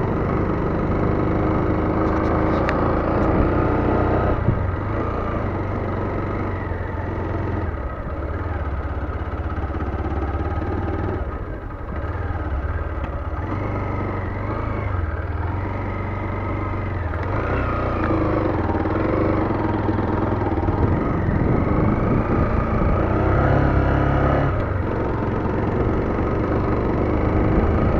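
Lifan KPT motorcycle engine running while riding off road, its pitch rising and falling as the throttle changes.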